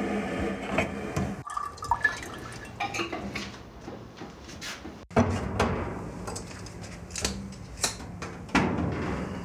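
Tap water running into a metal stovetop kettle, stopping about a second and a half in. Then the metal kettle clinks and clanks as it is handled and set on the gas stove, with several sharp clicks near the end as a lighter is struck at the burner.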